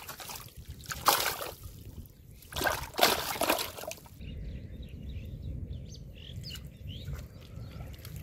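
A caught fish thrashing in a plastic basin of water, splashing in two loud bursts. After that, birds chirping faintly over a low background hum.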